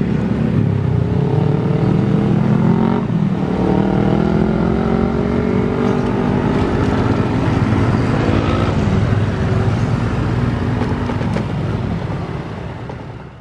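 Small motorcycle engines and a car engine running as they pass close by, crossing a level crossing at low speed. The sound fades out near the end.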